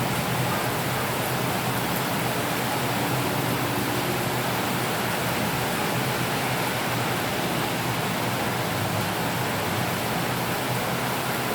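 Heavy rain falling steadily: a dense, even hiss with no separate drops or thunderclaps standing out.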